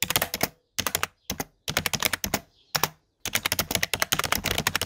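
Keyboard typing sound effect: rapid key clicks in several quick runs, separated by short pauses.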